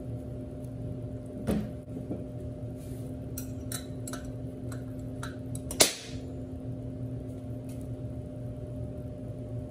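Several metal clicks and knocks as a cast-iron Atlas lathe tailstock is handled on a workbench and its handwheel and lock lever are worked, the sharpest knock about six seconds in. A steady low hum runs underneath.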